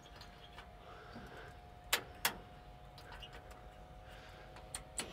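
A few sharp clicks: two about a third of a second apart near the middle, and two more close together near the end, over a faint steady tone.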